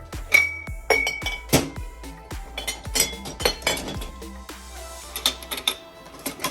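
Cups and dishes clinking and knocking as drinks and ice are handled, a dozen or so sharp clinks, some ringing briefly, over background music.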